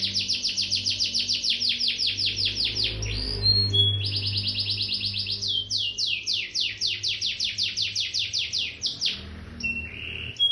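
Domestic canary singing: long, fast trills of repeated falling notes, about ten a second, broken twice by short whistled notes.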